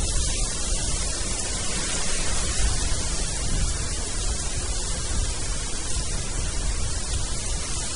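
Breeze blowing steadily, buffeting the microphone with a low rumble under an even rushing hiss.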